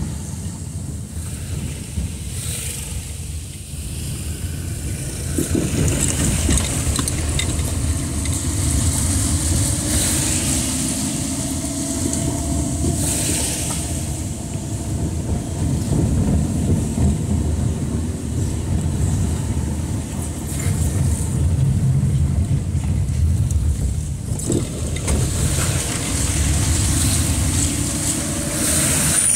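A car driving on a wet street, heard from inside the cabin: a steady engine and road rumble, with the engine note slowly rising and falling and tyre hiss from the wet road that swells at times.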